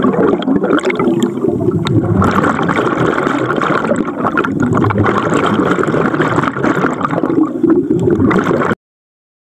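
Scuba diver's exhaled air bubbles rising, a dense, continuous bubbling and gurgling heard underwater. It cuts off abruptly near the end.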